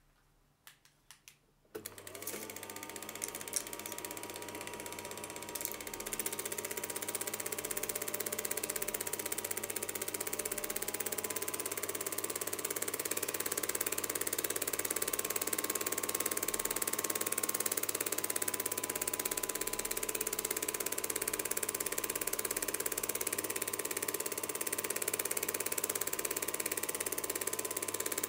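Home-movie film projector running: a steady fast mechanical clatter from its film-advance mechanism over a motor whir and a steady hum. A few clicks come first, then it starts up about two seconds in.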